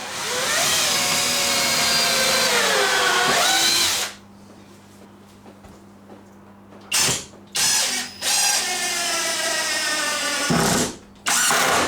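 Power drill-driver driving screws into timber: one long run of about four seconds whose pitch sags as the screw bites, then after a pause several shorter runs.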